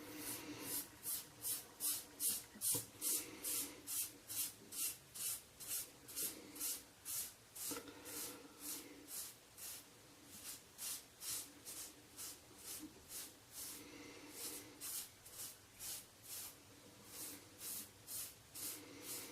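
A Rockwell 6C safety razor scraping through a week's stubble on a scalp, in short, even strokes of about two to three a second.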